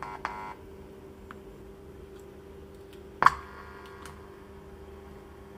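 A 3.5 mm audio plug being handled and pushed into a small Bluetooth receiver: one sharp click with a brief ring about three seconds in, over a low steady hum. A short run of electronic beeps ends about half a second in.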